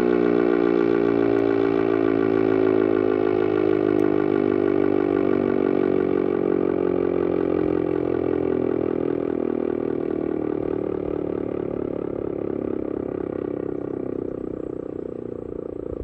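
ACA Banshee 115 electromechanical outdoor warning siren winding down after a full-alert test: its motor is no longer driving it, so the tone slowly slides down in pitch and fades as the rotor coasts to a stop.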